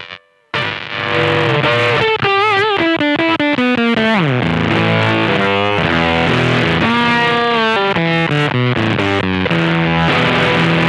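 Electric guitar played through a MOSKY BC108 Fuzz Face clone pedal powered at 12 volts: fuzz-distorted single notes with wavering bends, a sliding drop about four seconds in, then held notes and chords. The tone is typical of the pedal's unrepaired fault, which the owner calls a bias problem that makes it sound broken.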